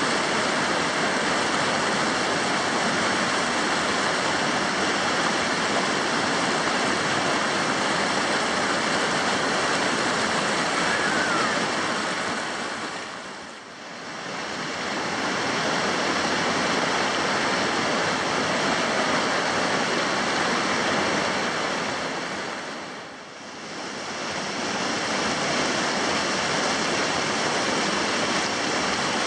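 Steady rush of whitewater rapids on a rocky mountain river. It fades down and back up twice, about a third and about four-fifths of the way through.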